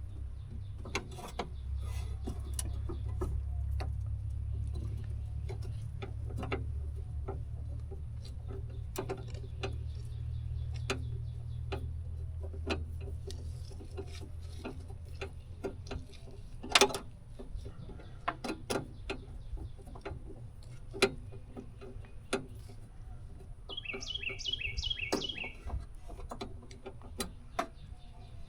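Scattered clicks and knocks of hand tools and metal parts being worked inside a car door, with a low rumble through the first half. A bird chirps in quick repeated notes near the end.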